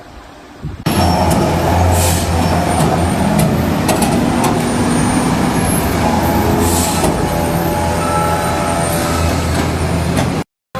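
Heavily overloaded truck's engine running loud and steady with a deep hum, cutting in suddenly about a second in, with two short hisses along the way; it cuts off abruptly near the end.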